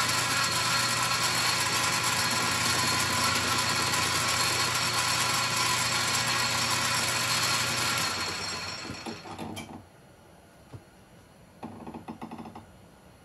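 Metal lathe running steadily while machining, then switched off about eight seconds in and spinning down to a stop. A short burst of fast ticking follows near the end.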